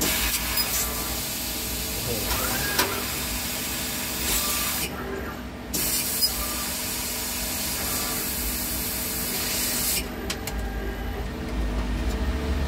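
Fiber laser cutting thin steel sheet: a loud, steady hiss of the cutting head's assist-gas jet that cuts off sharply about five seconds in, resumes a second later, and stops again near ten seconds as the head moves between cuts. A low machine hum continues underneath.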